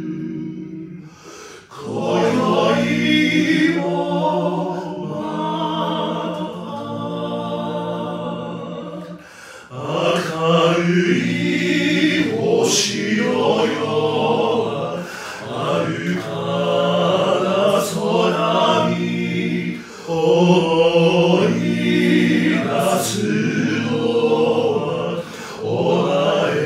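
Four-part male a cappella singing, all four voices sung by one man and layered together, moving in slow chords. The voices sing long phrases with short breaks between them, three times.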